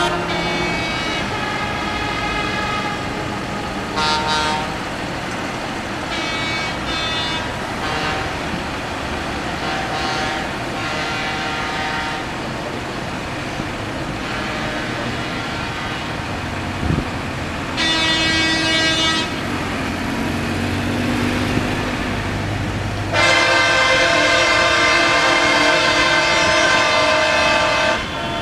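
Vehicle horns honking in several short blasts, then one long, loud horn blast of about five seconds near the end, over steady traffic and engine noise.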